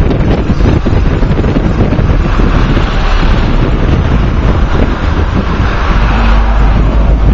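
Loud wind rumble buffeting the microphone of a moving car, over the engine and tyre noise of the car and the city traffic around it.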